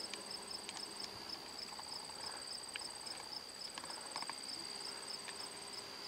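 Crickets chirping in a steady, high, finely pulsed trill, with a few faint ticks.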